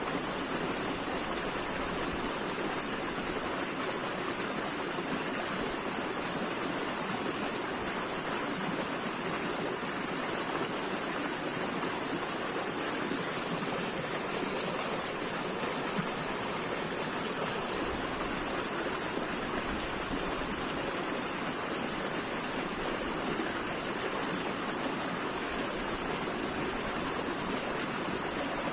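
Flowing water, like a stream or small waterfall, running steadily with an even rushing hiss.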